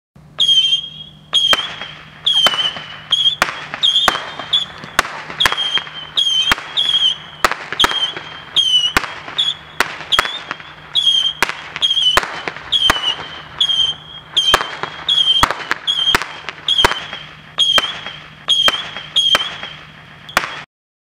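Saturn missile battery firing in rapid succession: each missile gives a short high whistle and a sharp report, about every half second, for some twenty seconds, then the firing stops abruptly.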